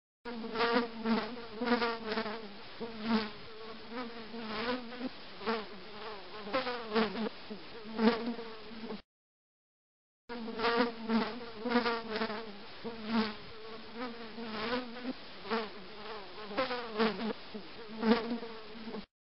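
Housefly buzzing in flight, its wing hum wavering in pitch and swelling louder and softer over and over as it passes close and moves off. It breaks off about nine seconds in for a second of silence, then the same buzzing starts again.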